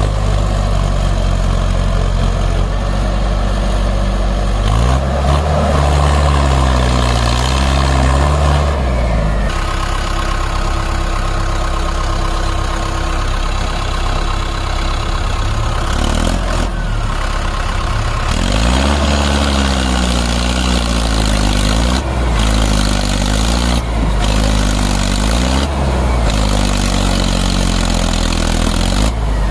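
Heavy diesel engines of a tractor and a JCB backhoe labouring together as they try to push the loaded, stuck tractor free. The engines rev up and down again and again, with a steadier stretch in the middle.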